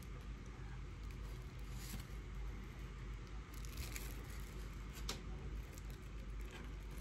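Faint rustling of a clear plastic bag around a small statue being handled, with a few light ticks over a steady low hum.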